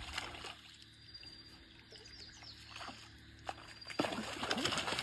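Large fish thrashing in shallow muddy water: a splash at the start, a quieter stretch, then loud, continuous splashing from about four seconds in.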